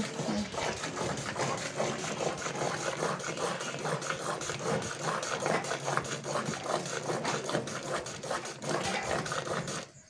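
A cow being milked by hand: quick, evenly paced jets of milk squirting into a plastic bucket already part-full of frothy milk.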